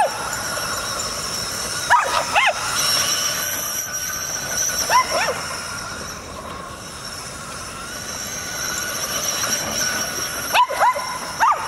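Boston Terriers giving short, high barks in little bursts: a pair about two seconds in, another around five seconds, and several near the end, over a steady high-pitched whine.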